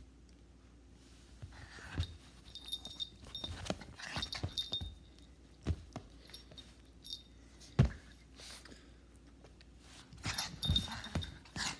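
Small dog moving about on a bed, its collar tags jingling in short bursts, with several soft thumps and bumps.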